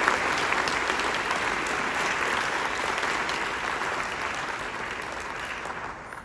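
Audience applause, many hands clapping, slowly dying down and stopping near the end.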